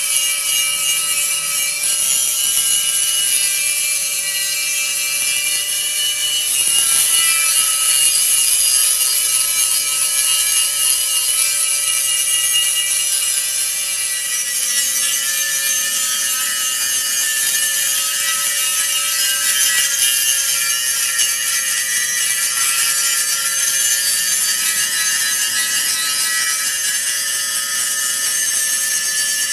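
Power grinder working steel without a break, a steady motor whine over a loud hiss of abrasion.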